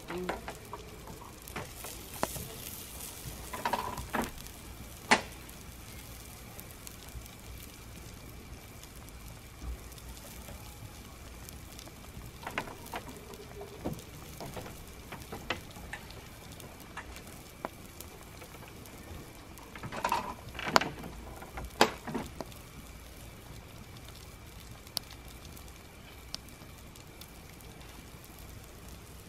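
Wood campfire burning in a steel fire ring, crackling over a steady hiss, with scattered sharp pops and a cluster of louder ones around twenty seconds in.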